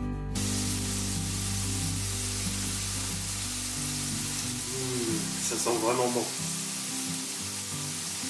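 Carrot and daikon radish chunks sizzling steadily in a butter-and-sugar glaze in a stainless frying pan, the water nearly boiled off as the glaze cooks down towards caramel. The sizzle comes in just after the start.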